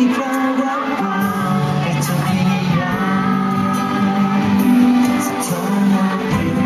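A singer and band performing a Thai pop song live, with long held, wavering vocal notes over steady accompaniment.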